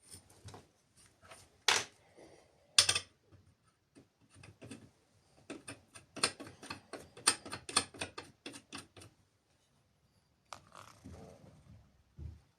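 Irregular mechanical clicks and knocks, as of metal tools and parts being handled. The loudest knocks come near the start, then a quick run of rattling clicks for several seconds, and a softer rustle near the end.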